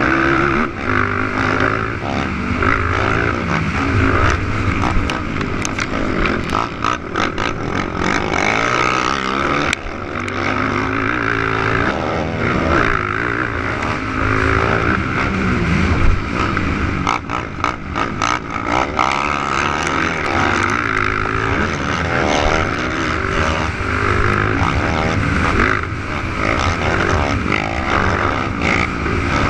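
Several 450cc four-stroke race quads running on a motocross track, their engines revving up and down and overlapping, loud throughout.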